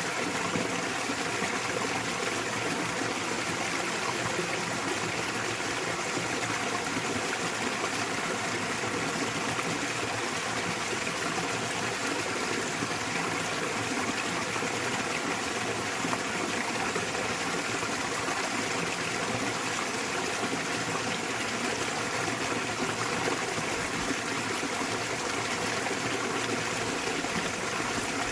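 Small waterfall on a mountain stream, its water rushing and splashing steadily without change.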